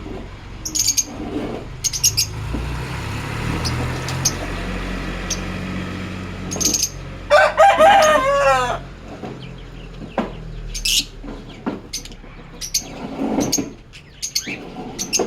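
Lovebirds chirping, short high calls scattered throughout. About seven seconds in comes a louder call lasting about a second and a half, with repeating falling notes.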